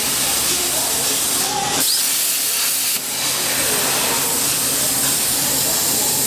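Gas metal arc (MIG) welding arc burning: a steady, loud, dense hiss and crackle.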